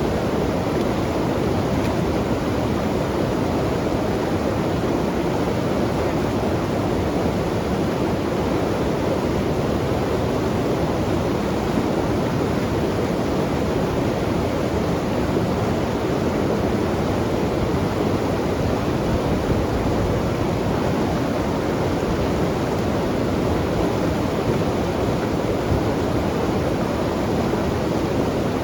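Fast-flowing mountain river rushing past, a steady, unbroken noise of white water.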